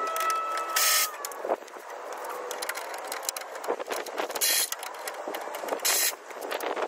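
Car front bumper being worked loose by hand: scraping and clicking as it is pulled at its mountings, with three short loud scrapes about a second in, around four and a half seconds and near six seconds.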